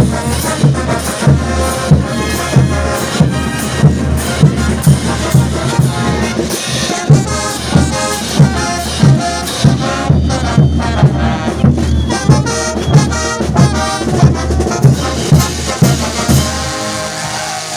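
Bolivian brass band playing: trumpets and trombones over a steady bass drum beat.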